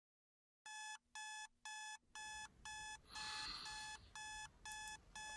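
Electronic alarm beeping in a steady rhythm, about two identical high beeps a second, starting just under a second in. A short rustle is heard about three seconds in.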